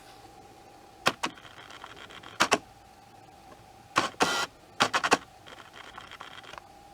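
Sharp clicks, first in pairs and then in a quick cluster with a short noisy burst in the middle, with a faint high whir between some of them.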